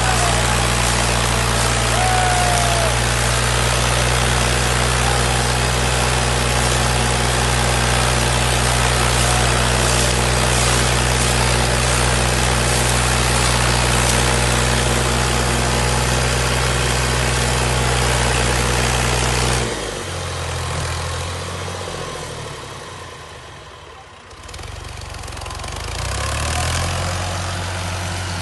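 Heavy diesel engine of farm machinery running steadily. About two-thirds of the way through, the sound drops abruptly and fades away, then rises again with a different tone near the end.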